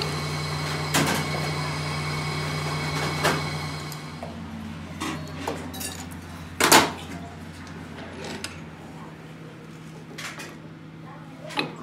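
Metal lathe running with a steady hum while it turns a steel shaft, shutting down about four seconds in. Then come several sharp metallic knocks and clanks as the steel parts are handled and fitted together; the loudest is just past halfway.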